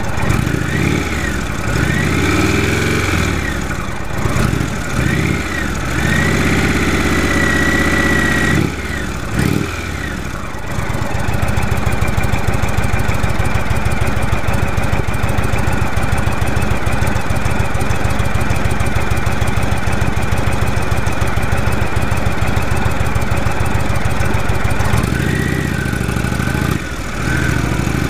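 Indian Thunderstroke 111 V-twin engine of a 2015 Indian Chief Vintage, revved up and down several times and held at a raised rev, settling about 11 seconds in into a steady idle and then revved again near the end. A high whine rises and falls with the revs, which the rider calls the loudest whining he has heard from this engine.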